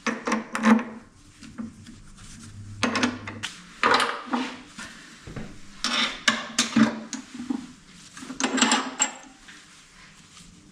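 Metal-on-metal clinks and knocks in four short clusters, the sound of a Jacob's chuck and drawbar being fitted to a midi lathe and the work being mounted.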